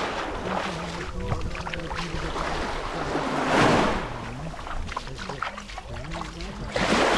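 Small waves of a calm Baltic Sea washing onto the shore at the water's edge, the surf swelling and falling back about every three and a half seconds: once in the middle and again near the end.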